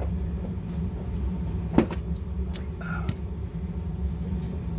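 A sharp click about two seconds in and a lighter tick shortly after, like small hard parts or tools being handled on a workbench, over a steady low hum.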